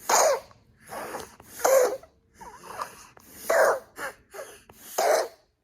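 A baby with a tracheostomy, breathing through a speaking valve, making hoarse, breathy crying sounds: four strained bursts about a second and a half apart, each mostly rasping air with a little voice in it.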